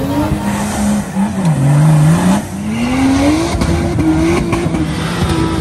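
An off-road 4x4's engine revving under load. Its pitch holds, dips about a second and a half in, climbs again and then holds higher.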